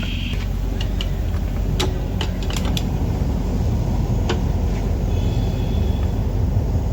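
Steady low rumble of machinery, with a scatter of light metallic clicks and clinks from about a second in, as of tools and engine parts being handled during an engine teardown.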